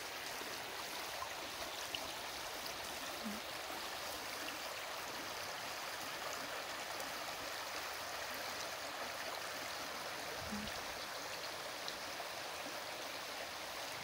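Shallow spring-runoff stream running over gravel and pebbles: a steady, even rush of water.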